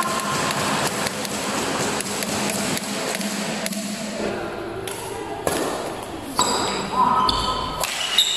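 Badminton doubles play on an indoor court: sharp racket strikes on the shuttlecock and footfalls, with sneakers squeaking on the court floor near the end. Voices chatter in the reverberant hall underneath.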